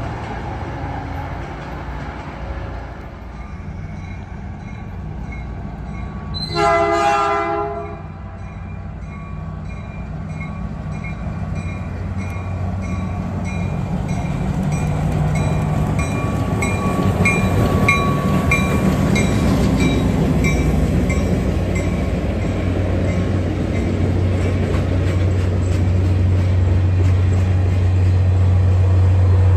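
A Caltrain diesel-hauled train approaching and passing. One horn blast about a second long comes some seven seconds in. After it the locomotive's low rumble grows steadily louder as it comes close, with a bell dinging repeatedly, and the train runs past close by near the end.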